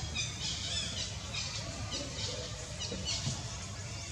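Young macaque giving a run of short, high-pitched squeals, repeated every half second or so, over a low steady hum.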